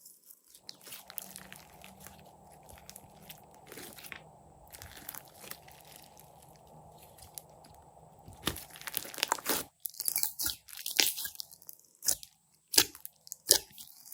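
Glossy slime being squished and stretched by hand, making sticky crackles, clicks and pops. It is quieter for the first several seconds, then the pops turn sharp and loud over the last five or so seconds.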